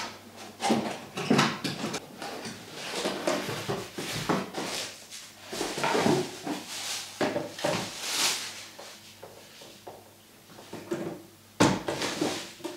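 Cardboard box flaps and plastic packaging rustling and crinkling as a corded power tool is unpacked, with scrapes and knocks from handling the box and tool, and one sharper knock near the end.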